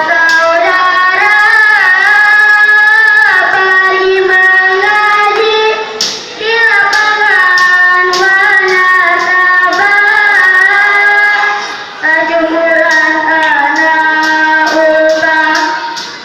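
A child's solo singing voice in long phrases of held, ornamented notes that waver in pitch, pausing briefly for breath twice.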